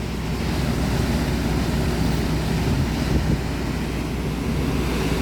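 Swollen river in flood rushing steadily, a continuous roar of water with a deep rumble, some wind on the microphone.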